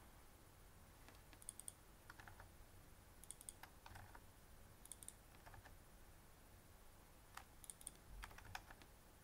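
Faint clicking of a computer keyboard and mouse, in short scattered groups of one or two clicks.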